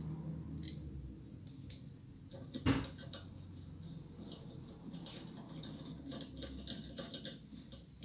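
Small metal clicks, taps and scrapes of a small plate being fitted and fixed onto a shop-made lathe flattening disc, with one louder knock about two and a half seconds in, over a faint low hum.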